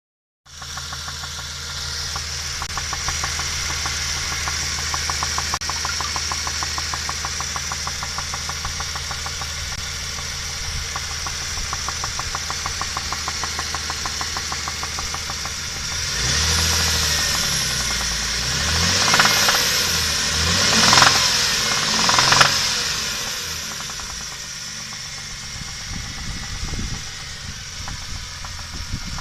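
Dodge Intrepid 2.7-litre V6 idling with a regular, rapid knock. It is revved up several times about two-thirds of the way through, then drops back to idle with the knock still there.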